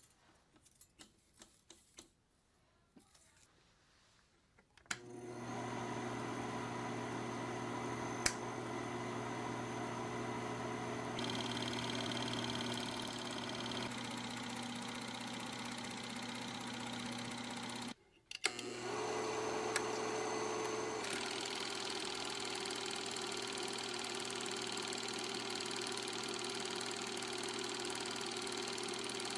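Film projector running steadily, starting suddenly about five seconds in after a few faint clicks. It cuts out briefly about two-thirds of the way through, then starts again.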